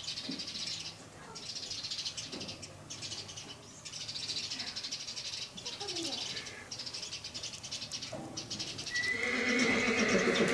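An equine whinny, from a mule or horse in the barn, rises loud with a held high note near the end. A fainter, finely pulsing high hiss or chirring runs underneath.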